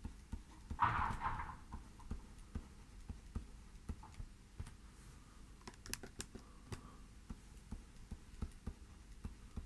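Faint, irregular clicks and taps of a stylus on a tablet screen as words are handwritten, with a brief louder rustle about a second in.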